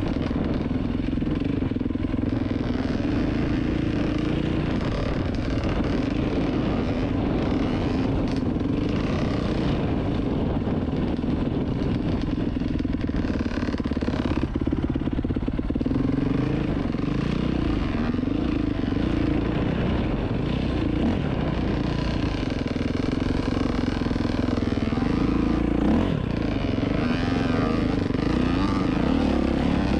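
Dirt bike engine running while the bike is ridden along a trail, heard from the rider's own bike. Its pitch wavers up and down continuously as the throttle is worked.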